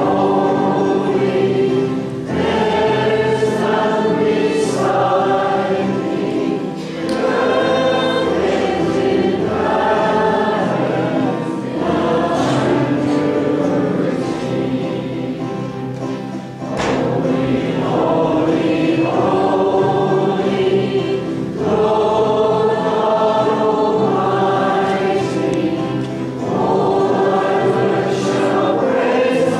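A congregation singing the entrance hymn together, in phrases with short breaks between the lines.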